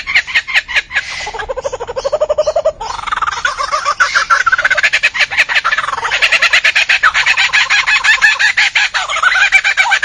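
Lyrebird singing with its bill open: a long, loud run of rapid rattling notes mixed with rising and falling whistled phrases, with a lower phrase dipping in about a second and a half in.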